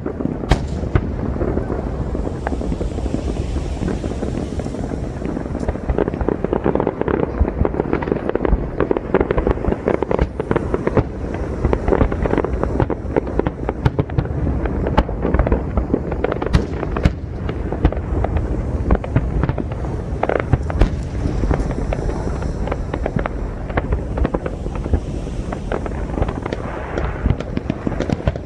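Aerial firework shells bursting in a rapid, continuous barrage, with many bangs and crackles overlapping and no pause between them.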